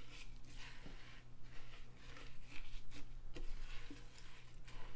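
A small spatula stirring dry surfactant noodles around a slow-cooker pot: light, irregular scraping and rustling with little ticks.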